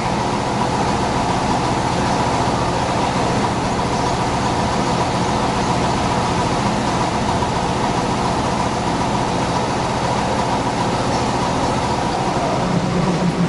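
Steady mechanical hum of trains at a railway station, with several steady tones and no change in level; a further low tone comes in near the end.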